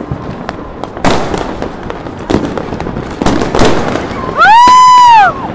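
Fireworks and firecrackers going off all around: a run of sharp bangs and crackles over a steady haze of distant bursts. Near the end, a very loud high-pitched tone swoops up, holds for about a second and falls away.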